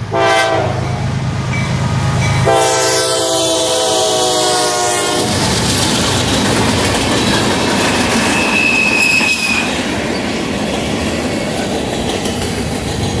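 Freight diesel locomotives passing close under power: the lead GE ES44DC sounds its horn in a short blast at the start and a longer blast of about three seconds from two and a half seconds in, over heavy engine rumble. Then the units and freight cars roll by with steady wheel clatter on the rails and a brief high wheel squeal near the middle.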